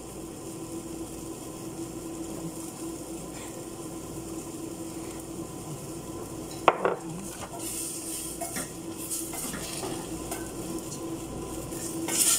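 Food sizzling in a stainless steel pot over a steady background hum, with one sharp knock about halfway through. From there on a wooden spatula stirs and scrapes against the pot with scattered clinks, loudest near the end.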